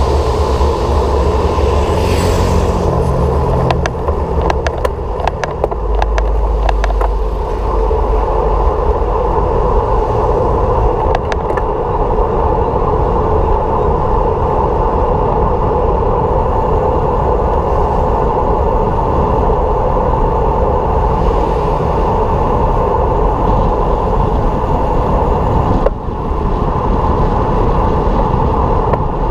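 Steady road and wind noise from a moving vehicle during a ride. A low engine-like hum shifts in pitch over the first few seconds, and a quick cluster of clicks comes about five seconds in.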